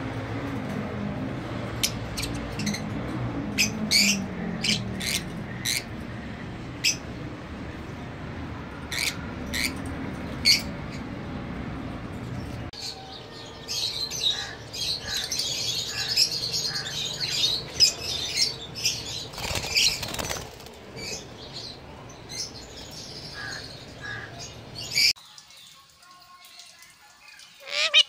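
Lovebirds chirping: single sharp chirps over a low steady background hum at first, then, from about halfway, a busier, continuous chattering of several birds, which drops away near the end.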